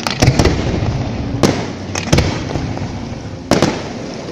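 Aerial firework shells bursting in a display: about seven sharp bangs at irregular intervals, some in quick pairs, each trailing off in a rumbling echo.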